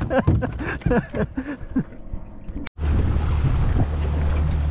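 A voice for about the first two seconds, then after a sudden cut a steady low rumble of wind buffeting the camera microphone out on open water.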